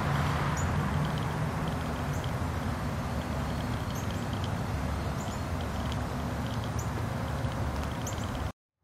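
Outdoor background noise: a steady low rumble with faint, short bird chirps now and then. It cuts off abruptly just before the end.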